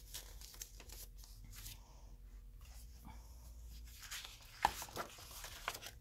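A hardcover picture book being opened on a table and its pages turned: soft paper rustles and small taps, with one sharper knock a little over halfway through.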